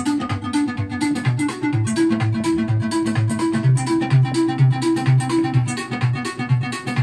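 Electronic music played live in Ableton Live from Maschine Jam and Midi Fighter Twister controllers: a low note pulsing about twice a second under a repeating higher note pattern and quick steady ticks.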